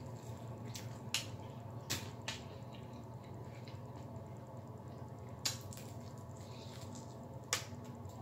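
Close-up chewing and crunching of fried chicken wings, with sharp crackles of the breading about a second in, twice around two seconds, and again near five and a half and seven and a half seconds, over a steady low hum.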